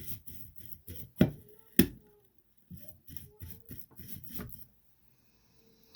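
A string of light clicks and taps, with two sharper knocks a little over half a second apart early on, as a soldering iron's tip is cleaned.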